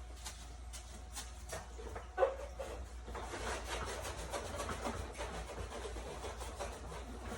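Cloth scrubbing and wiping dirt off the plastic inside of a dehumidifier: quick rubbing strokes that become rapid and continuous from about three seconds in, with a single knock about two seconds in.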